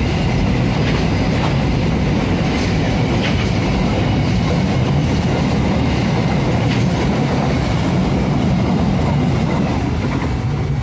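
Container freight train's flat wagons rolling past, a steady loud rumble of wheels on the rails with scattered clicks. The last wagon goes by near the end and the sound starts to ease off.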